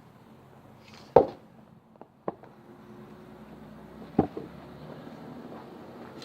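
Axe blows striking a hard laurel log: three sharp chopping impacts, about a second, two seconds and four seconds in, the first the loudest.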